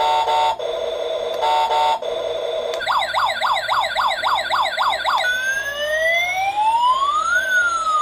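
Toy RC fire truck's electronic siren sound effect: two short beeps, then a fast yelp siren warbling about three times a second for a couple of seconds, switching to a slow wail that rises and then falls.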